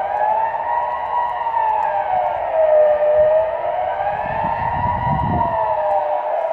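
Civil defense siren wailing: a steady tone rising and falling slowly, about four seconds per cycle. This is the Swiss general alarm signal, sounded during the annual siren test. A low rumble joins in about four seconds in.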